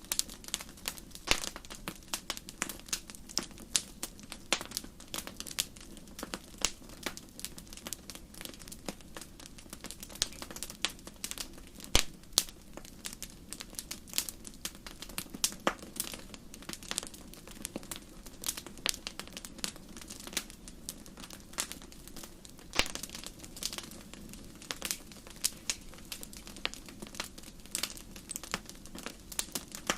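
Wood campfire crackling: irregular sharp pops and snaps, several a second, over a steady low rush of the burning fire, with one louder pop about twelve seconds in.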